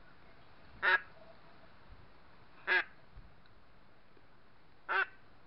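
Three short single duck quacks, about two seconds apart.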